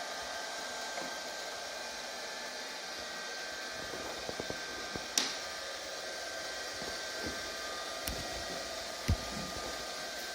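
ILIFE V5 robotic vacuum cleaner running with a steady whir and a faint whine. A sharp click about halfway through and a low thump near the end.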